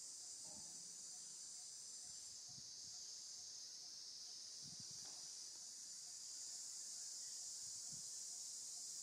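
Steady high-pitched drone of forest insects, with a faint regular pip a little more than twice a second and a few soft low thumps.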